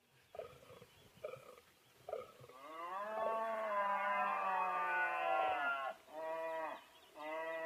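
Red deer stag roaring in the rut: three short grunts, then one long roar of about three seconds, followed by two shorter roars.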